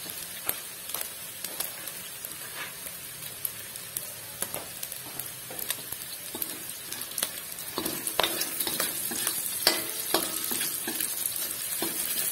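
Onion, garlic and minced beef sizzling in a steel wok while a metal spatula stirs and scrapes, with many short clicks of the spatula against the pan that come thicker and louder in the second half.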